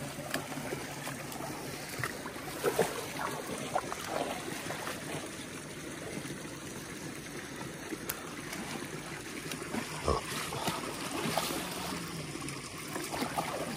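River water flowing steadily, with a few brief sharp sounds standing out near the start and twice about three-quarters of the way through.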